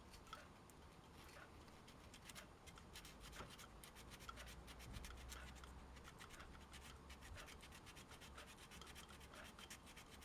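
Small torn-off piece of sandpaper rubbed by hand over a rusted metal part, sanding off the rust: faint, quick, scratchy strokes, one after another.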